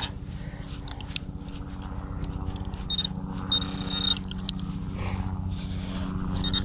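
Handheld Garrett pinpointer probe sounding short, steady high-pitched alert tones as it is worked into a dig hole, twice about three to four seconds in and again at the end, over a steady low buzz, with a few scraping clicks of the probe and dirt.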